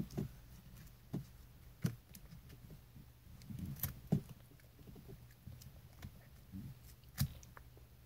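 A child nibbling a sheet of edible paper: a few soft, sharp clicks and small bites, spread out, the clearest near two, four and seven seconds in.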